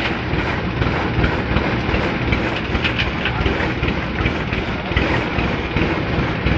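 Heavy farm machinery's engine running steadily under load with a continuous metallic rattle and scattered clanks.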